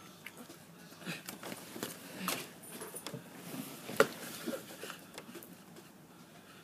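Faint handling noises from a small action camera being held and worked: scattered light clicks and rustles, with one sharper click about four seconds in.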